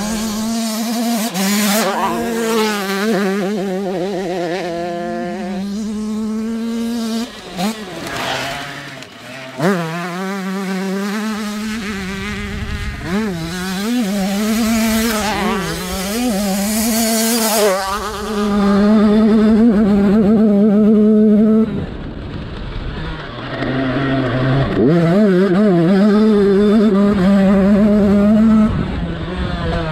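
Husqvarna TC85 85cc two-stroke dirt bike engine being ridden hard, revving up and falling back over and over, with brief dips and quick rises in pitch.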